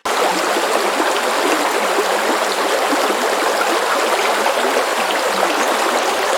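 Steady, even rush of running water, starting abruptly and holding unchanged with no rhythm or pitch.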